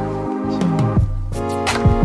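Music: sustained notes over deep bass notes that slide down in pitch, with sharp percussion hits entering in the second half.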